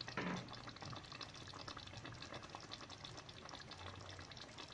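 Kofta curry gravy simmering in a pan, a faint steady bubbling with many small pops, with one brief louder sound just at the start.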